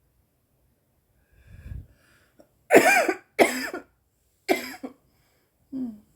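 A woman coughing on cannabis vape-pen vapour: four harsh coughs about a second apart, the last one weaker, after a short low rumble of air.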